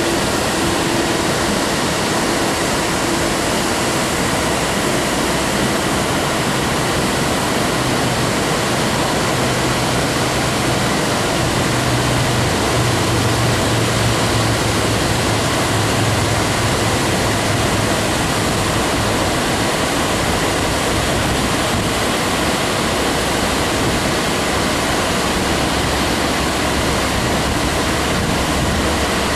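Steady rush of water pouring over a lowhead dam spillway, an even roar with no breaks.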